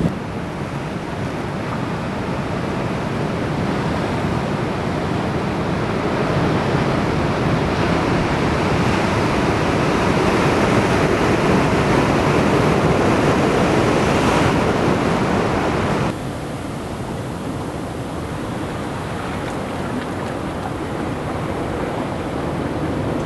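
Ocean surf breaking and washing over sand and rocks: a steady rushing of water that swells louder toward the middle, then drops suddenly to a duller, quieter wash about two-thirds of the way through.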